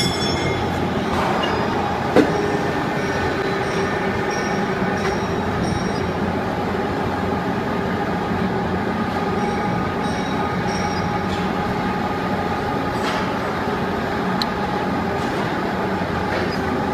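Aluminium cutting machine running steadily: an even mechanical hum with several steady tones and a few light clicks.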